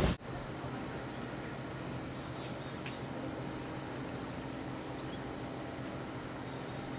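Quiet lakeside ambience: a steady faint hum with short, faint, high bird-like chirps now and then. It opens with loud wind and water noise that cuts off suddenly.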